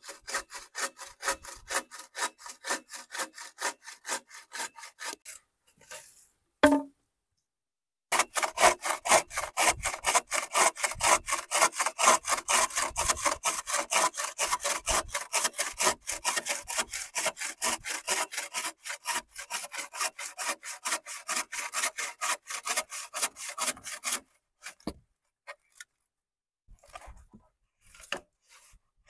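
Hand saw cutting bamboo in quick, even back-and-forth strokes, about three to four a second. The sawing breaks off with a single knock about seven seconds in, resumes, and stops about twenty-four seconds in, leaving a few light knocks.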